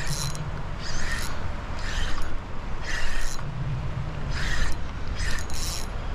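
Fishing reel working in short mechanical bursts, roughly one a second but uneven, while a hooked fish is fought on the line. A low steady rumble runs underneath.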